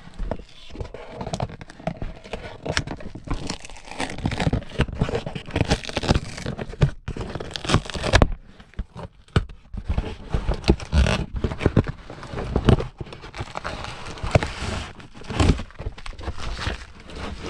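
Flashlight packaging being handled and opened: plastic and cardboard crinkling and tearing in irregular bursts, with small crackles and scrapes throughout.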